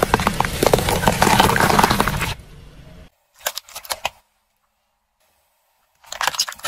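A car tyre rolling over bell peppers and crushing them, a dense run of crunching and cracking over a low rumble for about two and a half seconds. A few sharp cracks follow, then it goes silent, and more crackling starts near the end as a plastic tray of jelly is crushed.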